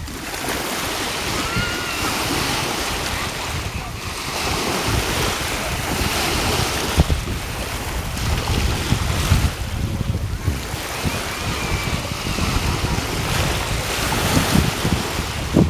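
Wind blowing over the microphone in gusts, with small river waves lapping and breaking along the shore.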